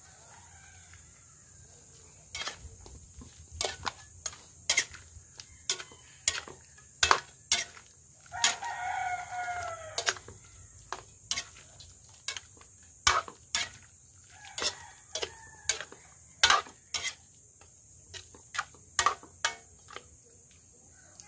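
Metal spatula scraping and knocking against a steel wok as chunks of goat meat in tomato sauce are stirred, in sharp irregular clicks. A rooster crows once, about eight seconds in, for about two seconds, with fainter calls near the start and in the second half.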